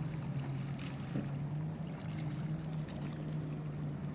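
A steady low motor hum, with a few faint light clicks over it.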